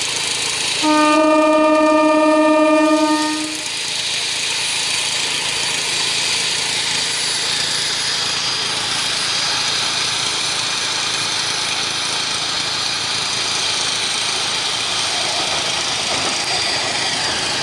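MEMU passenger train sounding one long horn blast about a second in, lasting roughly two and a half seconds, then running steadily along the rails as it approaches and comes close.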